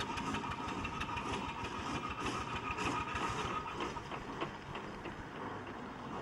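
Aveling and Porter steam road roller running, with a rapid, busy mechanical clatter and a steady tone under it.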